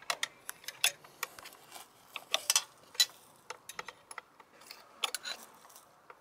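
Irregular metallic clicks and clinks of two 10 mm wrenches against each other and against the linkage nut as the nut is unwound to separate the linkage between the outboard's leg and its lower unit.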